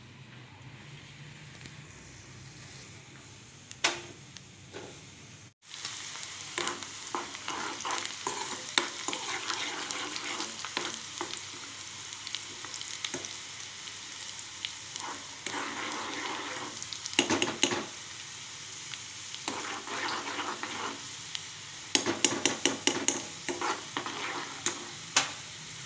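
Chopped onion and garlic sizzling in hot oil in a steel wok for a tadka, stirred with a steel spatula that clicks and scrapes against the pan. The first five seconds are quiet; the sizzle then comes in loud and steady, with clusters of rapid spatula clicks.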